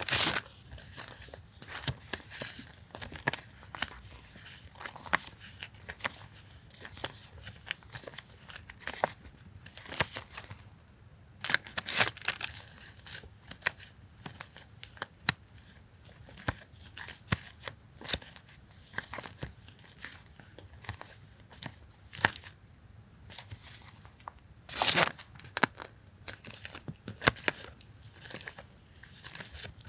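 Paper stationery being handled and unpacked: crinkling rustles, paper tearing and light taps, with a longer, louder rustle about 25 seconds in.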